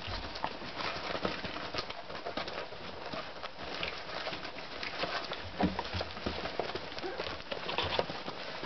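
Magyar Vizsla puppies scrambling about a whelping box: an irregular patter of small paws and claws, with occasional short squeaks and grunts.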